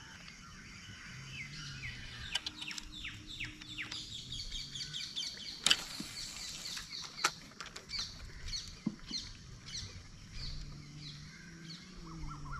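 Small birds chirping: a rapid run of short, high, falling chirps, with a lower series of rising notes near the end. Two sharp clicks stand out, about six and seven seconds in.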